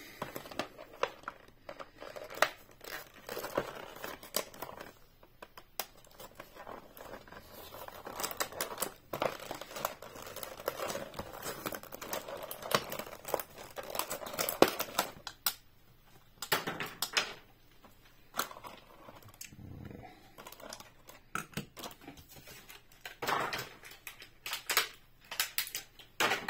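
A die-cast toy's blister pack being opened by hand: the plastic blister and cardboard backing crinkle and tear, with many irregular sharp crackles and clicks.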